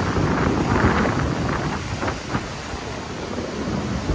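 Gusty storm wind buffeting the microphone over heavy surf breaking and washing across a seawall. The gusts are strongest in the first second or two and then ease.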